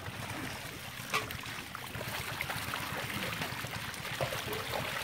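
Water trickling and splashing, with a sharp knock about a second in.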